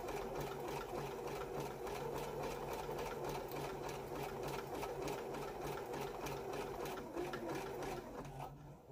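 Electric domestic sewing machine running steadily on a zigzag stitch, a motor hum under an even rhythm of needle strokes. It slows and stops near the end.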